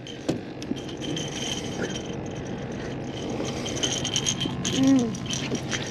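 Scattered light clicks and rattles from handling on a metal boat deck while a flathead catfish is unhooked, over a faint steady high whine. A short grunt comes near the end.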